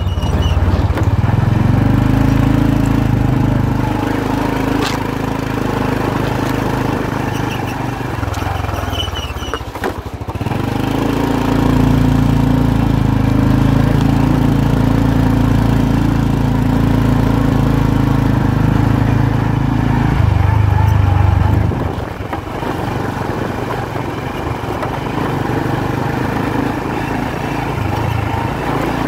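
Small motorbike engine running steadily at road speed, heard from the pillion seat. It eases off about ten seconds in, pulls strongly again, and drops back to a lower, quieter note after about twenty-two seconds.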